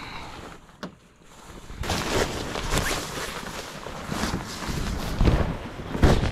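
Fabric rustling and handling noise close to the microphone as a cover is pulled over someone lying down, with a click early on and a heavy thump near the end.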